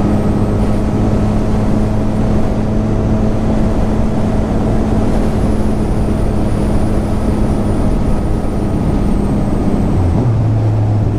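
Motorcycle engine running at a steady cruising speed, heard under heavy wind and road noise on the microphone; its note changes near the end.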